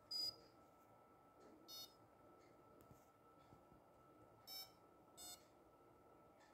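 Four short electronic beeps at uneven gaps over near silence; the first is the loudest.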